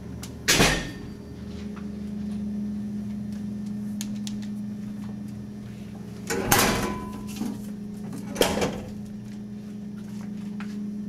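Steady low electrical hum, broken by three loud knocks or bangs: one about half a second in, another around six and a half seconds, and a last one about two seconds later.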